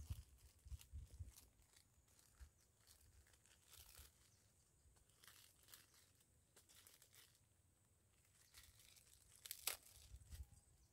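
Faint, scattered crinkling and crackling, with a sharper click near the end.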